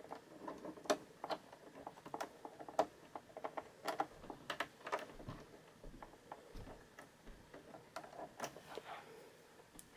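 Faint, irregular small clicks and scrapes of metal as a screw is worked out of a sewing machine's metal needle plate.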